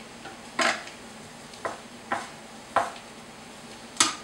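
Wooden spoon stirring flour-coated vegetables in a stainless steel skillet, the roux stage before broth goes in: five short scrapes and knocks against the pan, the last and loudest about four seconds in.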